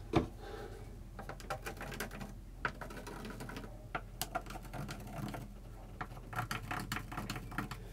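Small metal screws being handled and set back into their holes in a plinth board by hand: scattered light clicks and ticks, the sharpest just after the start.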